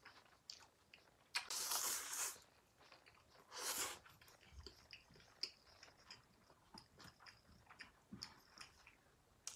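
Close-miked eating of stir-fried yakisoba noodles: chewing and small wet mouth clicks, with two louder airy bursts about one and a half and three and a half seconds in.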